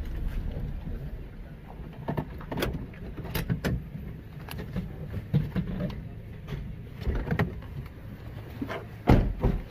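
Car rolling slowly over a rough stone-and-gravel lane, heard from inside the cabin: a steady low rumble with scattered clicks and knocks from the tyres and body. A loud thump near the end.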